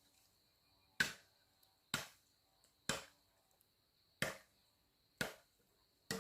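Six chopping strikes of a hand tool, evenly spaced about a second apart, each a sharp hit with a short ring-off.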